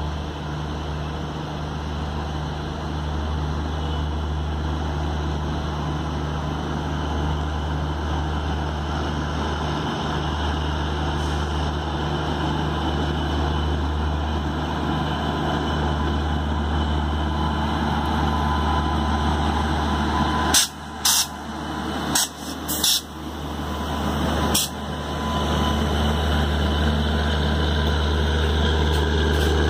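WAP-7 electric locomotive pulling away with an LHB passenger train, approaching and passing close by: a steady low electric hum that slowly grows louder, a cluster of loud knocks as it draws level about two-thirds of the way through, then the louder rumble of the coaches rolling past.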